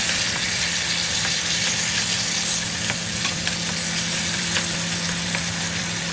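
Sliced pork heart stir-frying in a hot pan with a little water added: a steady sizzle, with light taps of wooden chopsticks stirring against the pan now and then.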